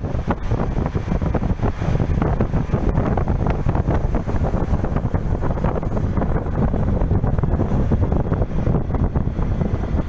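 Wind buffeting the microphone in a moving car, a gusty rumble over the steady road and engine noise of the vehicle driving along.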